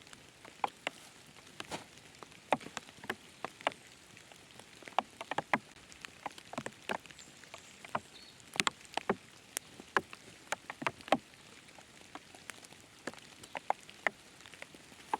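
Raindrops dripping irregularly: scattered sharp taps, a few a second and thicker about eight to eleven seconds in, over a faint steady hiss of rain.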